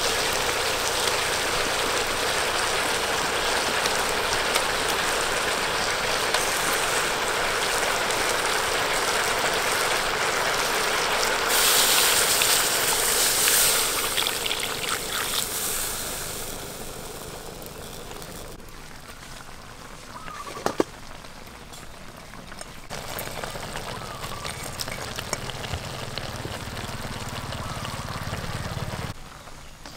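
Sauce and food sizzling in a hot wok: a steady hiss that swells louder about twelve seconds in, then dies down to a quieter simmer, with one sharp knock about two-thirds of the way through.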